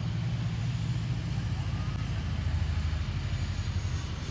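Wind buffeting the microphone, a steady low rumble that flutters unevenly, with a faint hiss above it.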